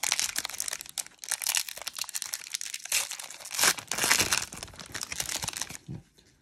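Crinkling and tearing of a baseball card pack wrapper being ripped open and crumpled by hand. It crackles steadily, with louder bursts about three and four seconds in, then dies down near the end.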